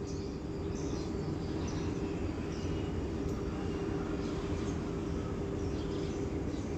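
Steady background noise with a low hum and a faint steady tone running through it, with no distinct events.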